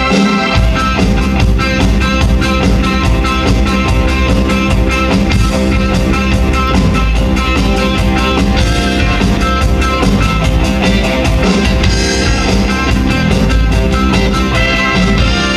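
Live band music in a rock style: guitar over drums, with a strong bass coming in just after the start and a steady, rapid pulse running through.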